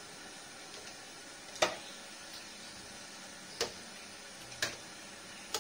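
Spatula knocking against a metal wok while a simmering stew is stirred: four sharp clinks a second or so apart, the first the loudest, over a steady low hiss.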